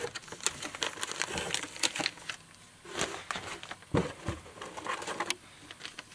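Clear plastic bait packaging crinkling and rustling as it is handled, with irregular crackles and a dull knock about four seconds in.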